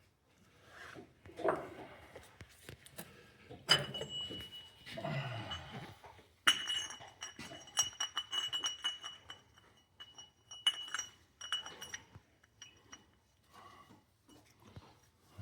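Metal tools and steel clutch parts clinking and knocking together during tractor clutch reassembly. Two sharp metallic strikes, a little under four seconds in and about six and a half seconds in, leave a high ring that hangs on for a few seconds.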